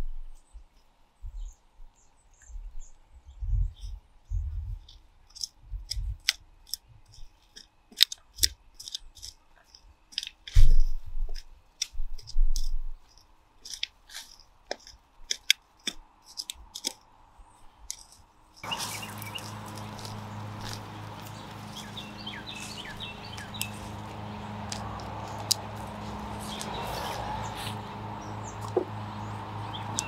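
Hand trowel digging and scraping through dry, compacted soil: irregular crunching scrapes, clicks and low thumps as the blade strikes and lifts the earth. After about eighteen seconds the sound switches abruptly to a steady low hum with birds chirping over it.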